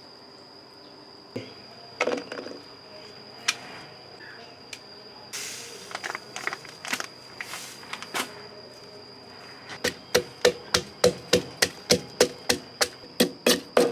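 Knife chopping on a wooden cutting board: a few scattered knocks, then a quick, even run of about four strokes a second in the last few seconds. A steady high insect drone runs underneath throughout.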